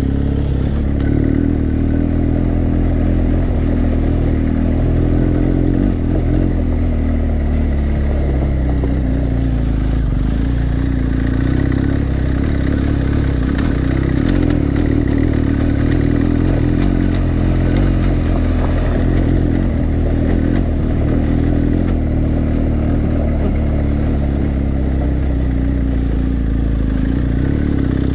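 BMW GS adventure motorcycle's boxer-twin engine running steadily at low road speed, about 25 to 28 km/h, on a rough gravel track, heard from on the bike.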